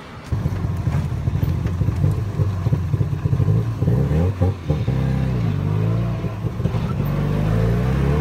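Tuk-tuk engine running under the passenger cab, its pitch rising and falling as it speeds up and slows down.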